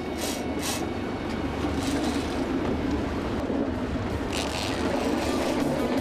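Boat's engine running steadily under way, with water and wind noise over it and a few brief hissing bursts near the start and about four seconds in.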